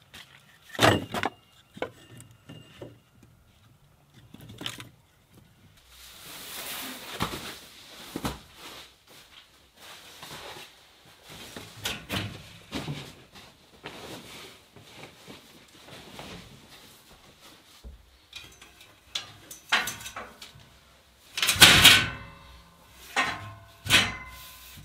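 Scattered knocks, thumps and rustles from handling: a stick of split firewood set onto a woodpile, then cushion pads being laid and shifted onto a slatted bed frame. The loudest knocks fall about a second in and again about three seconds before the end.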